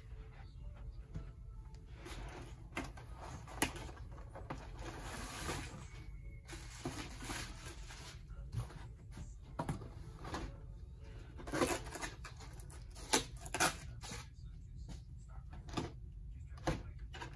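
Cardboard packaging being handled: irregular rustles, scrapes and knocks as the display box sleeve is lifted off and the tray moved, with a few sharper knocks.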